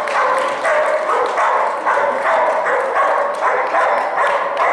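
A dog barking over and over in a steady run, about three barks a second.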